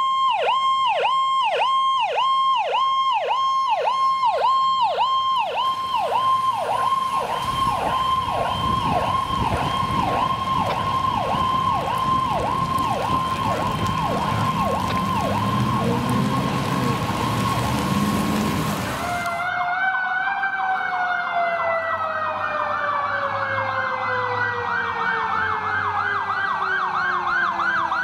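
An ambulance's electronic siren on a fast yelp, about two and a half sweeps a second. About two-thirds of the way through it gives way to a fire truck's sirens: a fast electronic yelp over a lower siren tone that falls slowly and steadily in pitch.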